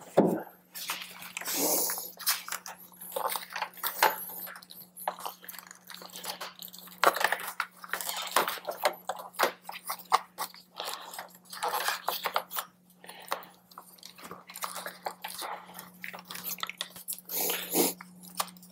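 Hands working a motorcycle wiring harness into place: rustling and clicking of plastic connectors and wires, with short rasps of nylon zip ties being pulled tight. A steady low hum runs underneath.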